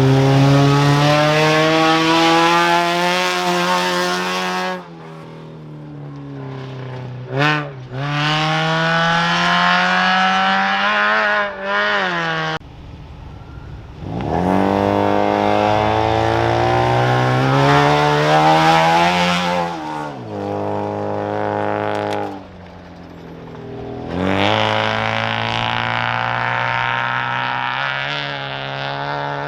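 Off-road race vehicles launching from the start line one after another, each engine's pitch rising steeply as it accelerates hard away. There are about five launches, with short dips between them.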